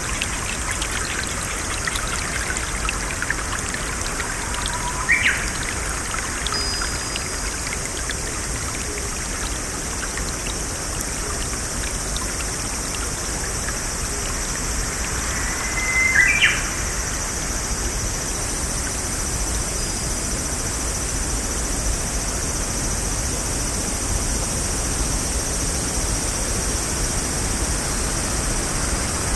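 Steady rush of flowing stream water, with two short bird chirps, about five seconds in and again about sixteen seconds in.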